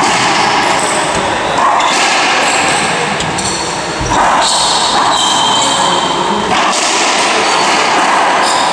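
Racquetball rally in a reverberant court: the ball thudding off racquets, walls and floor over a loud, steady echoing din, with one strong thud about four seconds in.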